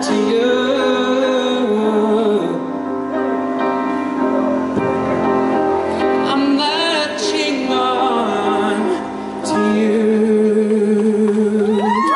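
A male pop singer singing long, held notes and wavering vocal runs into a handheld microphone over an instrumental backing.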